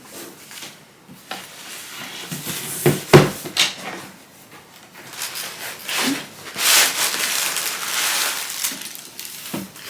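Packaging being unwrapped by hand: irregular rustling and crinkling, with a couple of sharp knocks about three seconds in and a longer stretch of louder rustling later on.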